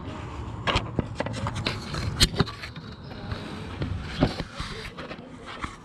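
Irregular sharp clicks, knocks and scrapes of plastic air-intake parts being handled and fitted in the engine bay, over a low rumble in the first half.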